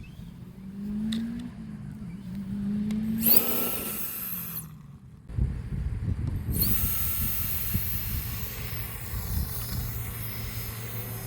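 Electric fan jet on a modified toy RC car whirring at high speed. Two rising tones come first, then a high whir starts a little over three seconds in. It cuts out briefly near the middle, then comes back and runs steadily.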